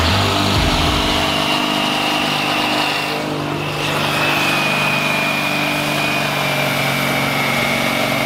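International 1455 XL tractor's diesel engine running hard under heavy load, pulling a sled, with a steady high whine over it that dips briefly about halfway and then falls slightly in pitch.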